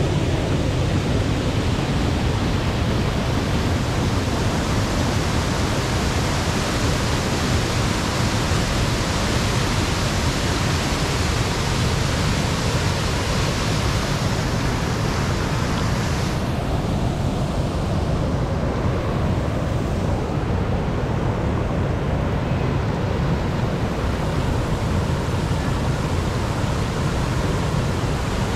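Waterfall rushing steadily over rocks: an unbroken roar with no let-up, whose hiss thins for several seconds past the middle.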